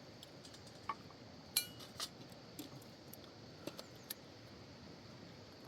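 Faint, scattered clicks and clinks, about seven short sharp ones, the loudest about a second and a half in, over a quiet steady background.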